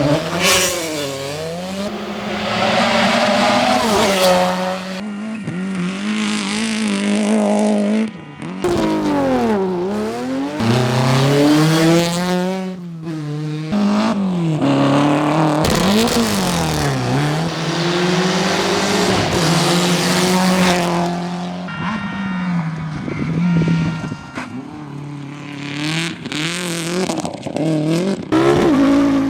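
Rally car engines revving hard, rising and falling in pitch as the cars accelerate, lift off and change gear, with sudden cuts from one car to the next.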